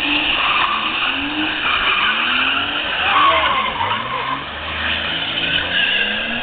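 Car engine revving up and down about once a second as the sedan slides sideways in a drift, with tyres skidding on wet asphalt.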